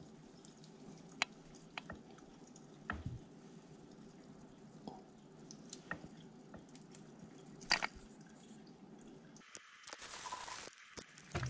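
Faint wet squishing and scattered light clicks from handling a snakehead fillet with a knife, over a steady low hum. A brief hiss lasting about a second comes near the end.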